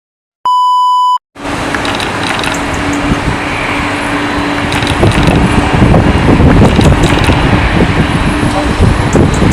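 A short electronic beep, then loud Boeing 767 jet engine noise: a continuous rumble with a steady low hum that starts suddenly and grows louder.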